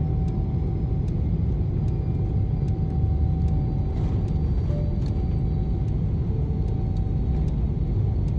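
Steady low rumble of cabin noise inside a Boeing 777-300ER airliner, with a faint steady hum above it.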